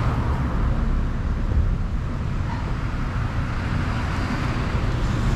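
Steady city street traffic noise, a low even rumble of passing road vehicles with no single event standing out.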